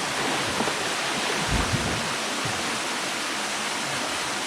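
Waterfall water rushing in a steady, dense roar of noise, with a couple of brief low bumps about a second and a half in.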